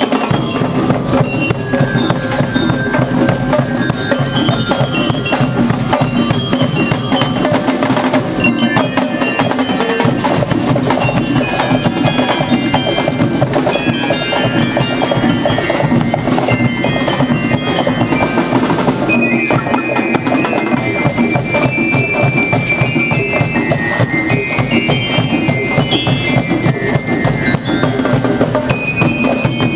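Marching drum band playing: rapid snare and bass drums under a bright bell-lyre (glockenspiel-type) melody. The tune moves to a new phrase about 19 seconds in.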